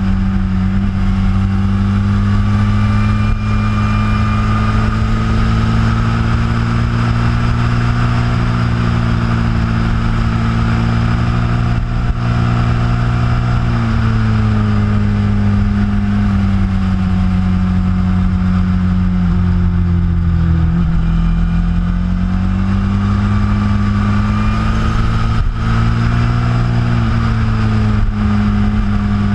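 Sport motorcycle engine running at speed, recorded from a camera mounted on the bike, under a steady rush of wind and road noise. The engine note drops lower about halfway through, dips again a little later and climbs back up near the end.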